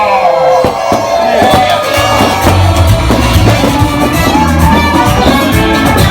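Loud Latin dance music playing over a party crowd, with voices at the start and a heavy bass line coming in about two seconds in.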